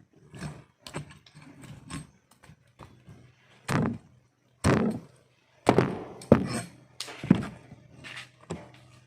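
Knife knocks and scrapes on a cutting board while a fish is being scaled and cut, as a string of sharp, uneven thunks over a faint steady low hum.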